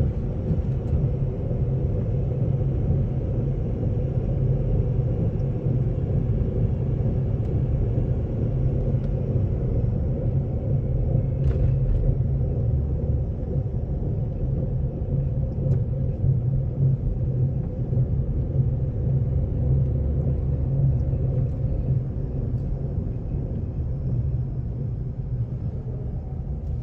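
2003 Ford Ranger Edge's V6 running with a steady low rumble, heard for an unidentified weird brushing sound.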